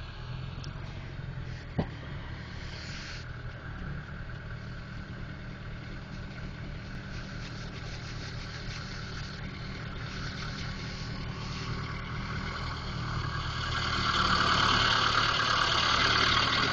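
Skid steer engine running steadily, growing louder about thirteen seconds in, with a single short click a couple of seconds in.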